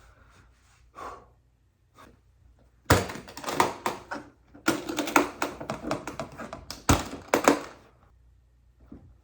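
Handling noise of the guitar's packaging and case: a quick run of clicks and knocks about three seconds in, then a longer clattering stretch of clicks and thunks before it goes quiet near the end.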